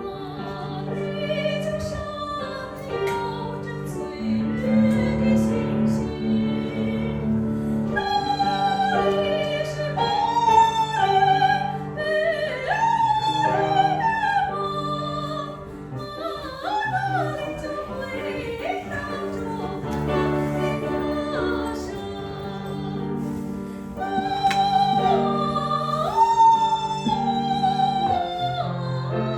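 A high operatic voice singing a Chinese art song with wide vibrato, over sustained instrumental accompaniment.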